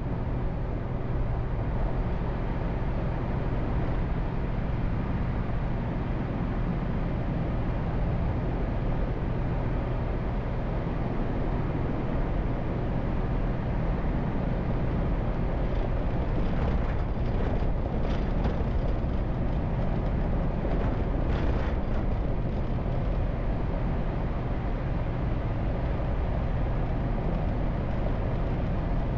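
A car driving at a steady speed: a low engine hum under even tyre and road noise, with a few short crackling rasps a little past the middle.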